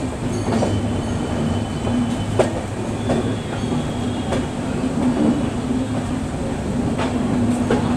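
Indian Railways express train running, heard from inside a coach at its doorway: a steady rumble of wheels on the rails with scattered clicks over rail joints, the sharpest about two and a half seconds in.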